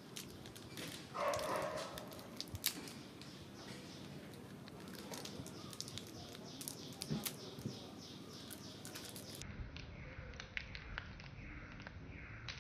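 Outdoor ambience of scattered small clicks and faint chirps, with a short, louder animal call about a second in. The sound turns duller about nine seconds in, as if the top end were cut off.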